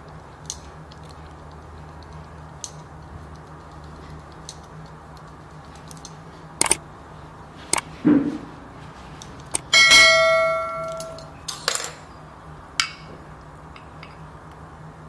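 Kitchen utensils and dishes being handled: scattered light clicks and knocks, then about ten seconds in one clear bell-like clink that rings and fades over a second or so.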